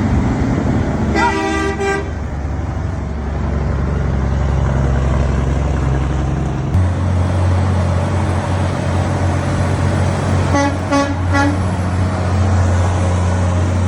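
Truck horn honking at passing traffic: one short blast of several tones about a second in, then a quick run of short toots near the end, over the steady low rumble of truck engines and road traffic.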